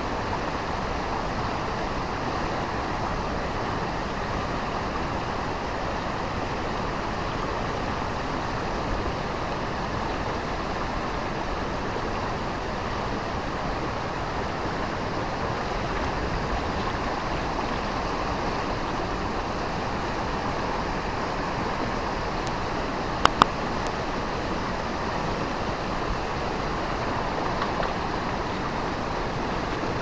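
Steady rushing roar of the 40 m Kedung Kayang waterfall, an even wash of falling water that doesn't change. Two short sharp clicks about three quarters of the way through.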